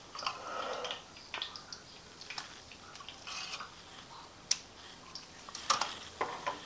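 Cooking utensils clinking and tapping against a wok and a plate, a handful of separate sharp knocks spread out over a few seconds.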